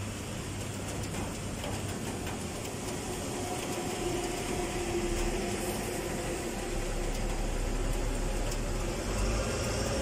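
Steady rain with a motor vehicle on the wet street below, its engine hum coming in about a third of the way through and growing louder toward the end.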